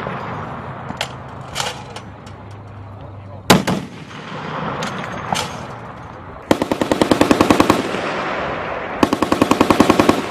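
Turret-mounted M2 .50-calibre heavy machine gun firing two rapid bursts of about a second and a half each, at roughly nine rounds a second. The first starts a little past halfway and the second near the end. Before them come a single loud shot and a few fainter ones.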